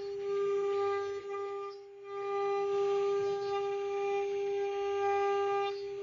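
CNC router spindle running with a steady high whine that holds one pitch throughout, dipping briefly in loudness about two seconds in.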